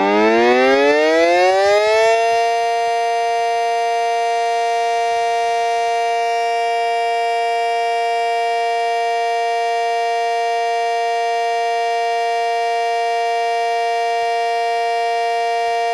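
Miniature electromechanical siren winding up, its pitch rising over about two seconds, then holding a steady, loud wail.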